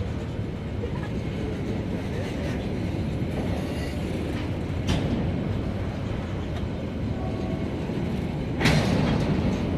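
Freight train rolling, a steady low rumble with a sharp knock about five seconds in and a louder clank near the end.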